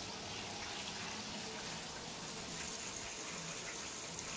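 Washing machine filling with water, a steady rush of running water.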